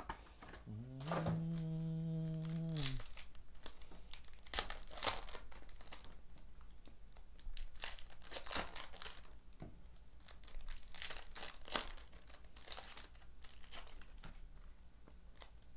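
Foil trading-card pack wrappers crinkling and being torn open by hand, in a run of short crackles. Early on, a voice holds one low hummed note for about two seconds.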